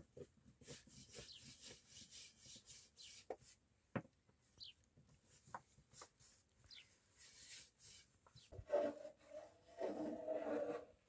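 A long thin wooden rolling pin rubbing and rolling over a sheet of flatbread dough on a cloth, in repeated soft scraping strokes with a few light knocks of wood. A louder pitched sound comes in near the end.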